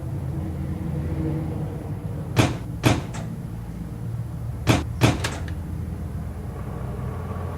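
A low steady hum with two quick groups of sharp knocks, three strikes each, about two seconds apart.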